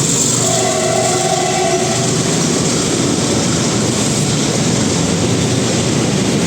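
Container freight train running through at speed, the wagons' wheels giving a steady rolling noise on the rails. The WDG-4G diesel locomotive's horn sounds once, briefly, about half a second in, for under two seconds.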